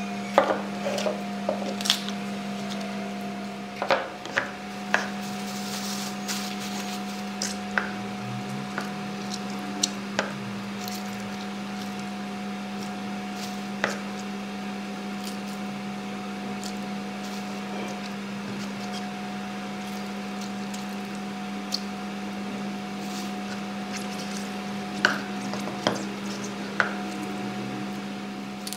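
Gloved hands crinkling a plastic bag and squeezing thawed shrimp in a bowl: scattered soft crinkles and wet squishes, in a cluster near the start and again near the end, over a steady low hum.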